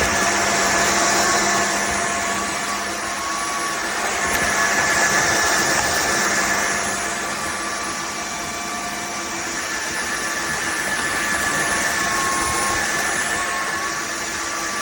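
Dreame H14 cordless wet/dry vacuum mop running: a steady motor hum with a thin high whine over a rushing suction sound, its level swelling and easing every few seconds.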